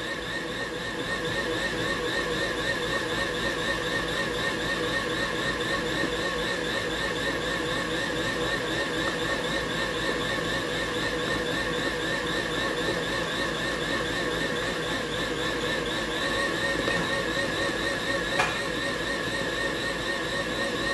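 Electric tilt-head stand mixer running steadily, beating carrot cake batter with grated carrot, its motor giving a whine that wavers regularly in pitch as the beater goes round. The sound picks up slightly about a second in, and there is one light click near the end.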